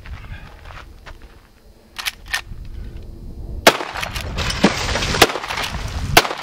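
Rossi Model 92 lever-action rifle in .357 Magnum with a 16-inch barrel firing several shots in quick succession, about a second apart, starting about halfway through.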